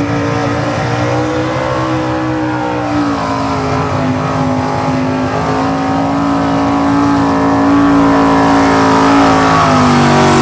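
Chevy pickup's engine running flat out under heavy load while pulling a weight-transfer sled. Its pitch climbs at the start, dips slightly about three seconds in, then holds high and grows louder near the end.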